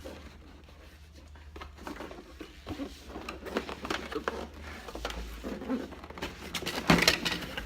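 Cardboard box and packaging being handled and opened: irregular rustling, scraping and small clicks, with a sharp knock about seven seconds in.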